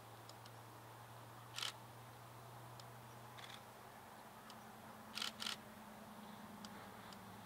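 A faint, steady low drone of distant diesel locomotives working, not yet in sight, which grows a little from about halfway through. Three short, sharp clicks stand out, one about one and a half seconds in and two close together about five seconds in.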